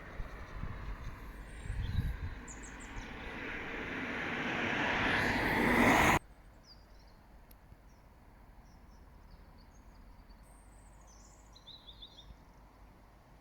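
A vehicle's noise grows steadily louder and cuts off abruptly about six seconds in. Then there is quiet outdoor background with short bird chirps.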